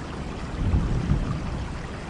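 Steady rain falling, with a low rumble of thunder swelling for about a second in the middle.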